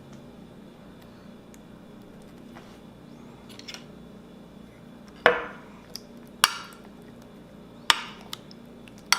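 Four sharp knocks of hard kitchenware against kitchenware, roughly a second and a half apart, each with a short ring, starting about five seconds in. Before them there is only a faint steady hum.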